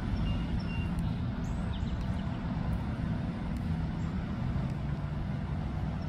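Steady low rumble of outdoor background noise, with a few faint, short, high chirps over it.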